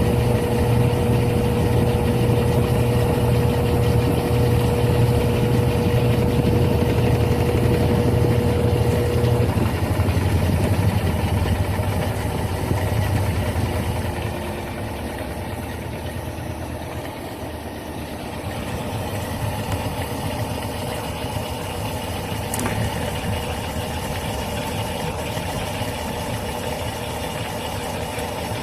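Electrolux Turbo top-load washing machine running with a steady motor hum and a held tone. The tone cuts off about a third of the way in, the machine slows and quietens over the next few seconds, then runs on more softly, with a single click about two-thirds of the way through.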